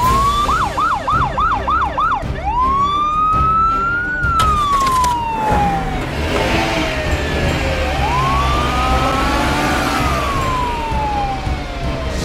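Police siren: a quick yelp of about six rapid up-and-down sweeps, then two slow wails that rise and fall, over a low vehicle rumble. A single sharp knock comes about four seconds in.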